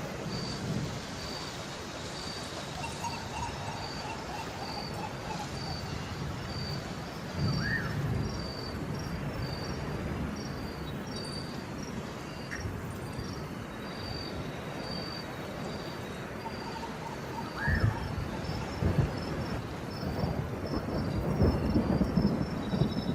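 Steady rain with thunder rumbling about seven seconds in and again repeatedly near the end. Over it, a high jungle-animal chirp repeats steadily throughout, with a few short bird calls.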